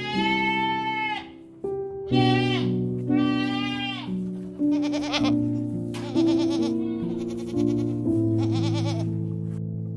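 An animal bleating repeatedly, about seven high calls, the later ones quavering, over background music with sustained keyboard notes.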